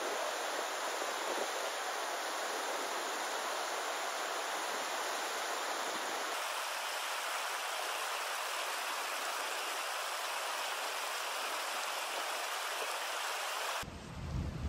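Mountain stream rushing and splashing over rocks in small cascades, a steady hiss whose character shifts slightly about six seconds in. Near the end it gives way to wind gusting on the microphone.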